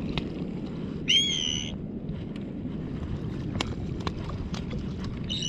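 A bird tangled in fishing line calling out in distress. There is one loud, high-pitched call about a second in and another starting at the very end.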